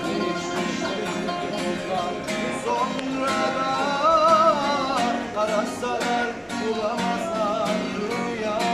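Live acoustic street music: a man sings with a wavering voice over a strummed acoustic guitar and a plucked oud. The voice swells loudest about halfway through.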